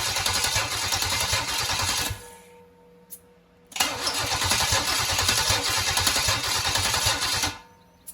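Chevy 454 big-block V8 cranked over by its starter for a compression test, without firing, in two bursts of about three to four seconds with a pause between. The test checks a cylinder that read only about 40 psi.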